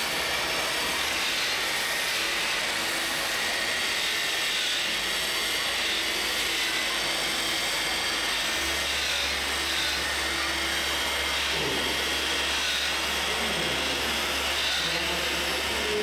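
Small electric drive motors and gears of radio-controlled model farm machines whining as they drive, the pitch gliding up and down a few times near the end, over a steady background noise.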